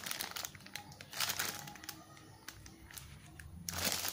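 Plastic packaging rustling and crinkling with scattered light clicks and taps as unboxed items are handled, in short bursts about a second in and again around three seconds in.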